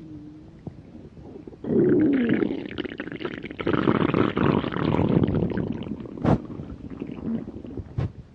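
A hungry person's stomach growling: after a faint gurgle, a long, loud gurgling rumble starts suddenly about two seconds in, with a pitched growl that bends downward, then fades over the last few seconds.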